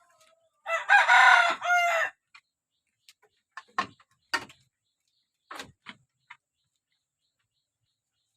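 A rooster crows once, about a second and a half long, its pitch falling at the end. A few short, sharp sounds follow.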